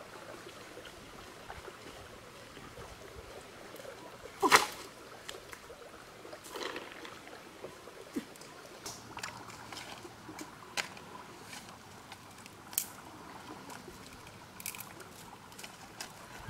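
Dry branches being handled: scattered snaps and knocks, the loudest about four and a half seconds in, over a faint trickle of water.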